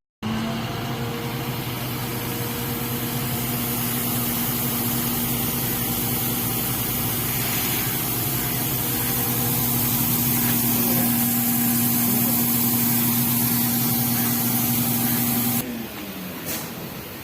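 Engine of a paddy-cutting machine running steadily with an even hum, falling away suddenly near the end.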